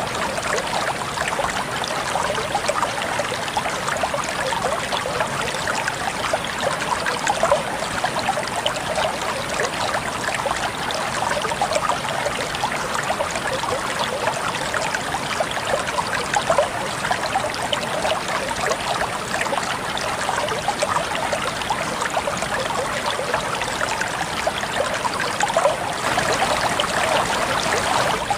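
Flowing water, like a stream running steadily, with a dense, even rush and fine splashing detail. It grows slightly louder near the end.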